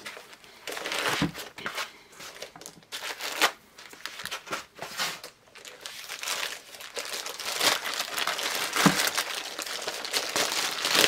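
Packaging crinkling and rustling in irregular bursts while a thermal label printer is unwrapped by hand, with a few sharp clicks.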